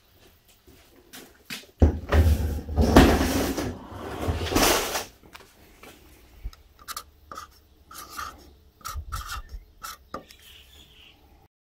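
A large panel scraping and rubbing as it is slid and shifted on a workbench, with a low rumble. Then a felt-tip marker squeaks in short strokes as it writes on an aluminium edge strip.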